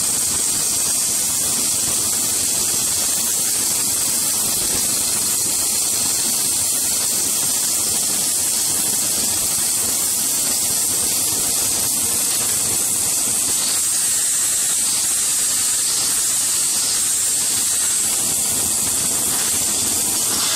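Steady hiss of an automatic pipeline welding arc running continuously around a pipe joint.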